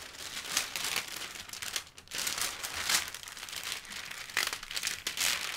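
Clear plastic protective film on a diamond painting canvas crinkling and crackling irregularly as it is pressed and smoothed flat by hand.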